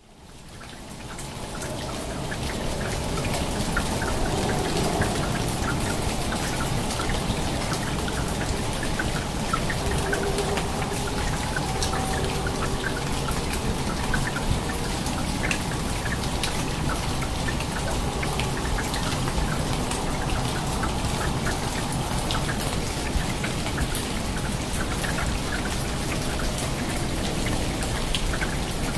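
Steady rush of falling water dotted with many small drop-like ticks, fading in over the first couple of seconds.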